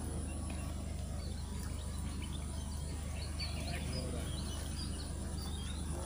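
Outdoor ambience: a steady low hum under faint, scattered chirps of small birds, busiest in the middle.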